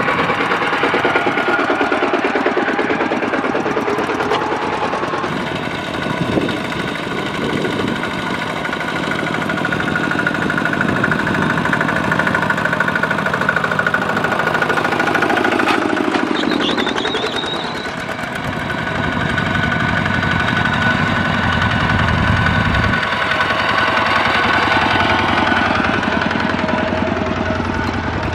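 Single-cylinder diesel engines of two-wheel walking tractors chugging under load as several, pulling loaded trailers, pass one after another. The sound swells and fades as each goes by.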